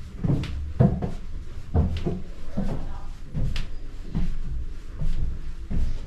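A series of irregular dull thumps and knocks, one or two a second, over a low rumble.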